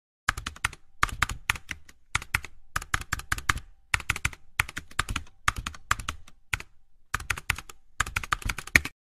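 Computer keyboard typing sound effect: short runs of rapid keystrokes with brief pauses between them, matching text being typed out, stopping just before the end.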